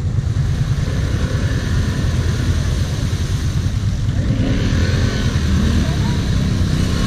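ATV engines running with a steady low rumble. Voices call out briefly about halfway through.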